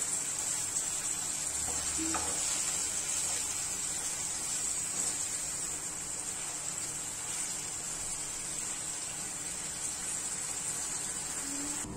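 Chicken pieces frying in yogurt and chilli paste in a pan, giving a steady sizzling hiss as the curd cooks into the meat.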